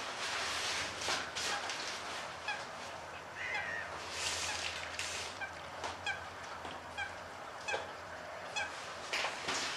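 Splashing water as a common snipe bathes in the shallows, in short irregular bursts with a flurry near the end. A bird calls in short, evenly spaced notes, about two a second, through the middle.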